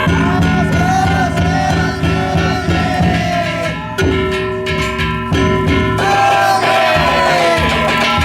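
Danjiri festival music: taiko drum beats and ringing kane gongs, with voices calling in long rising-and-falling cries over them.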